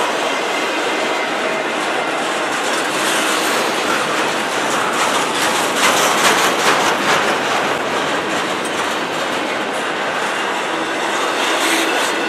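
Double-stack intermodal freight cars rolling past: steady noise of steel wheels on rail, with a quick run of clickety-clack over rail joints, loudest around the middle.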